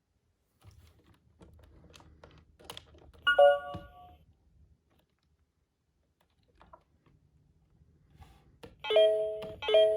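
Hasbro Room Tech Beingz alarm-clock toy: faint clicks, then a short electronic chirp about a third of the way in. Near the end its electronic alarm starts, a beep repeating about twice a second.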